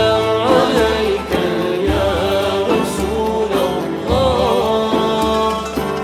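Live ensemble music with no lead vocal: a ney flute playing a melody with sliding, wavering ornaments over piano and kanun, with a low drum beat about once a second.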